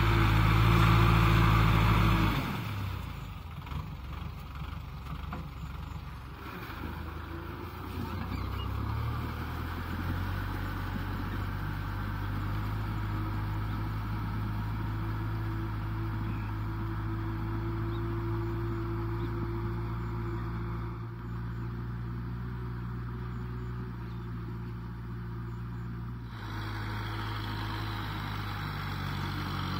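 Kubota M6040SU tractor's four-cylinder diesel engine running steadily under load while dragging a disc plough through wet mud. It is much louder for the first two or three seconds, when the tractor is close by, then settles to a lower, even drone.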